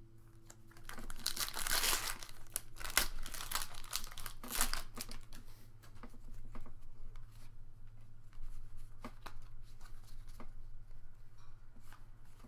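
Foil booster pack crinkling as it is torn open, densest in the first few seconds, then softer rustling and light clicks of cards being handled.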